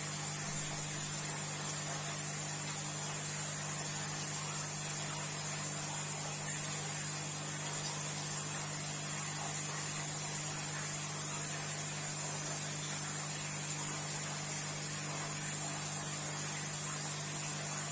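Steady electrical hum with a faint hiss from running aquarium equipment such as the filters and air pump.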